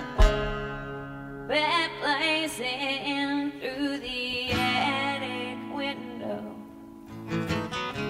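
Acoustic guitar and banjo playing a folk song, with a woman's singing voice coming in about a second and a half in and carrying the melody over the strummed chords.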